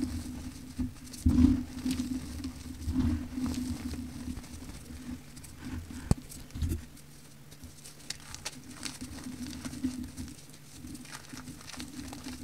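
Hands squeezing and crumbling soft pink powder and chunks of powder block in a plastic tub: soft crunches and the patter of powder sifting through the fingers, with a louder crunch about a second and a half in.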